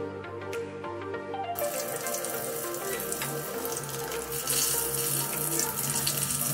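Breadcrumb-coated corn dog frying in hot oil in a metal karahi: a dense sizzle starts suddenly about one and a half seconds in as it goes into the oil, and grows louder near the end. Background music plays underneath.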